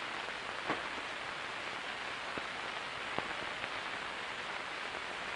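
Steady hiss of an old film soundtrack, with a few faint clicks and pops.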